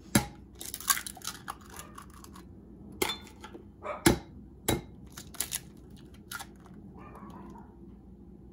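Eggs knocked against the rim of a mixing bowl and their shells pulled apart: a few sharp cracks, one just after the start and others about three and four seconds in, with smaller shell clicks between.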